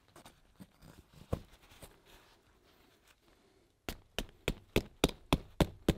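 A few faint scattered taps, then about four seconds in a steady run of about eight sharp knocks, roughly three a second.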